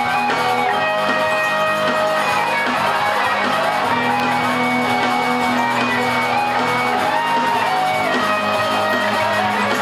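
Live rock band playing, with electric guitars prominent; the music runs at a steady level.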